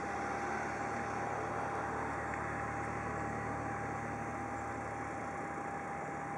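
Cessna CitationJet's Williams FJ44 turbofans idling on the ramp: a steady rushing hiss with a constant whine.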